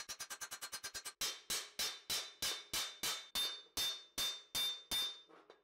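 Hammer striking a steel helmet: a fast run of light blows, about ten a second, for the first second, then slower blows about three a second, each leaving a short metallic ring.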